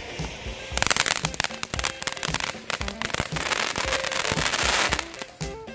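Ground fountain firework spraying sparks: a hiss full of rapid crackling pops, starting about a second in and running until just before the end.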